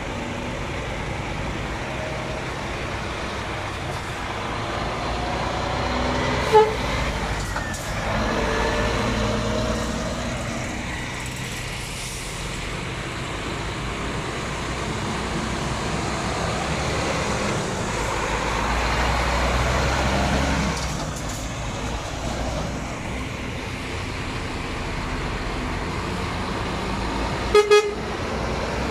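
Heavy diesel trucks running and pulling away one after another in a convoy, with a steady low engine drone. A single short horn toot comes about six and a half seconds in, and two quick toots come near the end.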